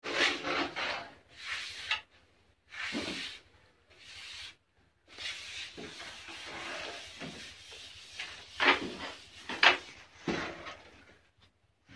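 Steel trowels scraping and spreading wet cement plaster over a concrete-block wall, in repeated strokes with short pauses between them.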